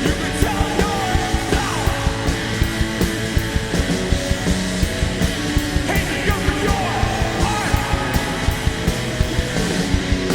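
Punk rock band playing live, with a fast, steady drum beat under the guitars and a singer shouting.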